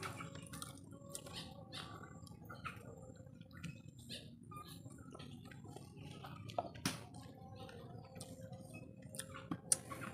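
Eating by hand: soft chewing and mouth smacks from a mouthful of rice and fish, with scattered small clicks as fingers pick at rice and fish bones on a banana leaf. Two sharper clicks stand out, about seven and ten seconds in.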